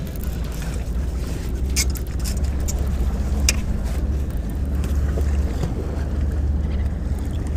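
Steady low rumble of wind on the microphone over choppy lake water lapping at a steel seawall, with a few sharp clicks about two and three and a half seconds in.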